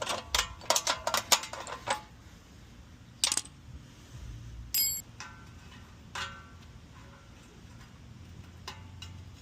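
Quick run of light metallic clicks and clinks over the first two seconds, then a few scattered knocks and a short ringing clink: hand tools and metal hardware being handled during repair work.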